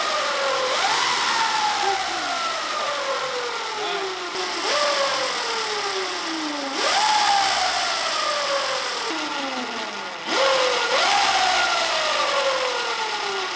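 Electric minibike drivetrain running on high speed with the rear wheel spinning off the ground: a whine that jumps up in pitch four times as the throttle is opened and slides slowly down as the wheel coasts, over the loud noise of the drive chain.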